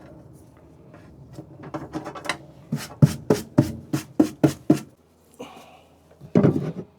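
A quick run of about eight knocks, roughly four a second, on something hard, then a short, louder clatter near the end.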